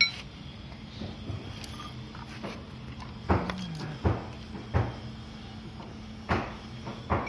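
Hammer blows on a car fender's sheet metal during body repair: a knock at the start, then after a three-second pause about five more, roughly a second apart, some with a brief metallic ring.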